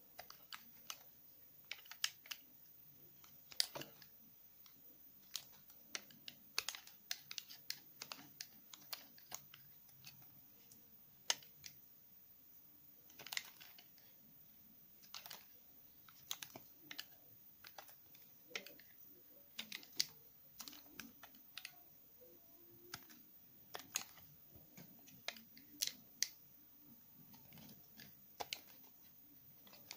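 Utility knife blade shaving thin curls off a bar of Palmolive olive soap: a string of short, crisp crackling scrapes, one stroke after another at about one or two a second, with uneven gaps.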